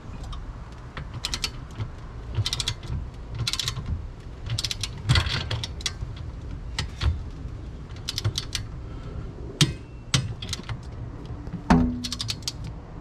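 Socket ratchet with an 11/16 socket clicking in short bursts, about one burst a second, as the handle is swung back and forth to run nuts down onto their bolts. A single sharper knock sounds near the end.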